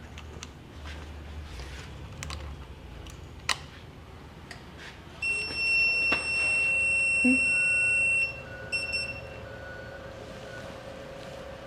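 Jet 20-inch smart drill press powering up: a sharp click, then a loud, steady, high-pitched electronic beep lasting about three seconds, followed by a couple of short beeps. A steady hum starts with the beep and carries on afterwards.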